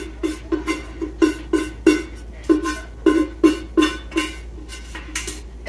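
Enamel pot being knocked over and over to shake the last cooked pasta out, about three ringing clanks a second for some four seconds.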